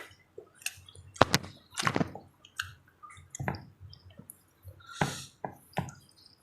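Close-up mouth sounds of someone eating papaya: wet chewing and lip-smacking, a run of short, irregular clicks and smacks.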